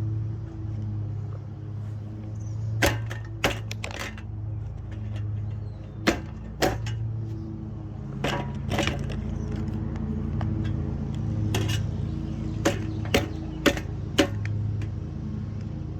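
Lasko box fan running with a steady low motor hum, with a dozen or so sharp clicks and knocks scattered over it.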